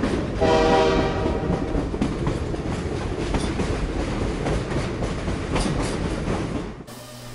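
A train running over the rails with a steady rumble and scattered clacks from the rail joints. About half a second in, the train sounds one blast of its horn lasting about a second. The sound fades out near the end.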